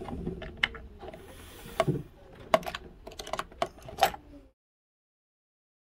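Scattered clicks and taps of a trim tab and its screw being fitted against an RC catamaran's plastic hull. The sound cuts off to dead silence about four and a half seconds in.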